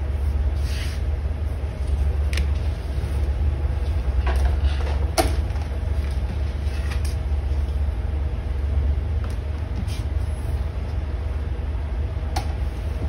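Steady low rumble under scattered light clicks and taps as a steel ruler, leather pieces and paper are picked up and set down on a cutting mat; the sharpest tap comes about five seconds in.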